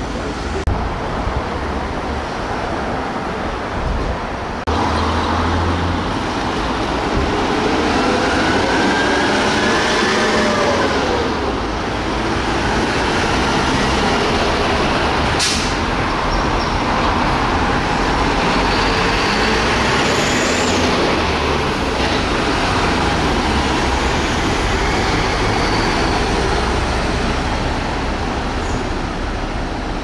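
Japanese fire engines on an emergency run, their sirens wailing in slow rising and falling sweeps over heavy truck engine and traffic noise. A single sharp burst of noise cuts through about halfway through.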